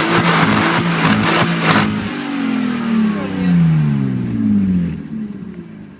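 BMW 320i engine running loud and raw through an exhaust with the muffler removed. It is held at high revs with a rapid rasping pulse for about two seconds, then the revs fall away in a long smooth drop and the sound fades near the end.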